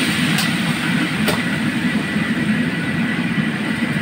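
Crab pieces deep-frying in a wok of hot oil: a loud, steady sizzle over the low roar of a high-heat wok range. Two sharp metal clinks from the ladle and strainer come about half a second and just over a second in.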